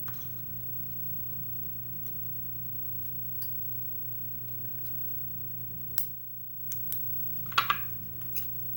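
Scattered light metallic clicks and clinks as a disassembled padlock and small tools are handled, with the loudest ringing clink about seven and a half seconds in. A steady low hum runs underneath.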